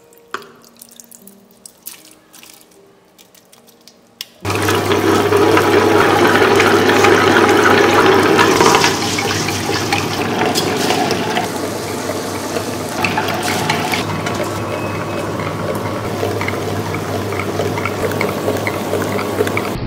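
Faint trickle of water into a tabletop wet grinder. About four seconds in, the grinder starts abruptly: its motor gives a steady hum while the stone rollers churn soaked sago and idli rice with water into batter, a wet sloshing grind that eases slightly after a few seconds.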